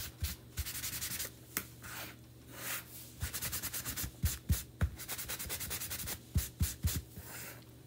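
A hand rubbing wax into small wooden cutouts: runs of quick back-and-forth scrubbing strokes with short pauses between them, and a few soft knocks.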